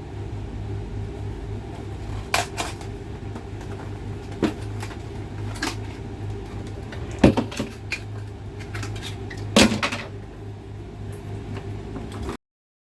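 Small hard parts being handled on a workbench: several sharp clicks and knocks, the loudest about seven and ten seconds in, over a steady low hum. The sound cuts off abruptly near the end.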